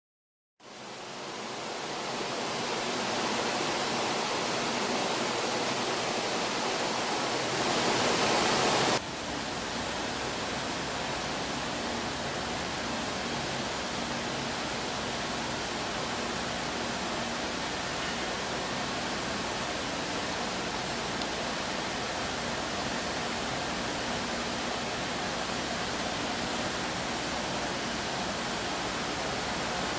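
Steady harbour ambience: an even rushing noise with a faint low hum, fading in over the first two seconds. It is a little louder until about nine seconds in, where it drops suddenly and then holds steady.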